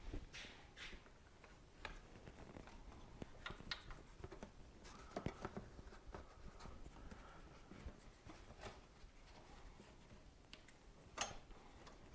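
Faint, scattered clicks and taps of tools and small parts being handled, the sharpest about five seconds in and again near the end.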